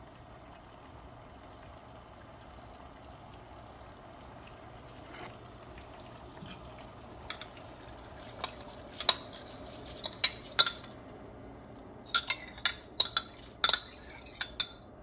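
Low, steady noise of water boiling in a pan. From about six seconds in come many sharp, irregular clinks of a utensil against a glass bowl of rice, in two spells with a short break a little past halfway.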